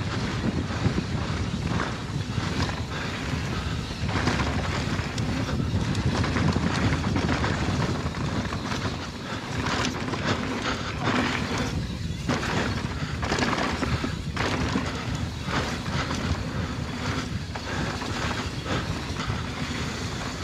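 Riding noise from a GoPro on a mountain bike descending a dirt flow trail: wind buffeting the microphone as a steady low rumble, tyres rolling on dirt, and frequent short rattles and knocks as the bike goes over bumps.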